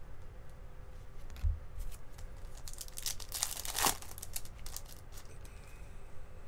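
Crinkling and tearing of a trading-card pack wrapper being handled and torn open, in scattered crackles with a dense, loudest burst between about three and four seconds in.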